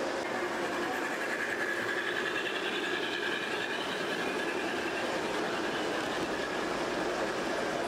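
G-scale model freight train running past on its track: a steady whir of its electric motor and wheels on the rails.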